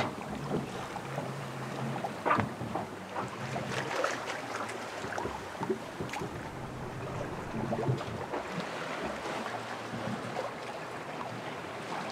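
Sailboat under way at sea: a steady wash of water along the hull and wind, with occasional short knocks from the boat's fittings.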